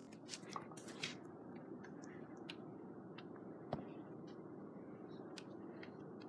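Quiet room with faint scattered clicks and ticks and one sharper knock a little past the middle.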